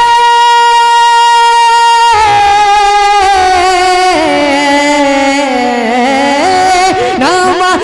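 A voice singing an Urdu devotional kalam. It holds one long steady note for about two seconds, then moves into a wavering, ornamented melodic run that slides up and down.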